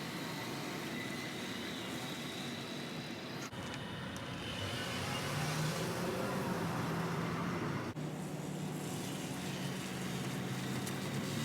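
Mercedes-Benz W221 S550's naturally aspirated 5.5-litre V8 running through its stock exhaust. About four to five seconds in, the engine note gets louder and a steady low hum settles in.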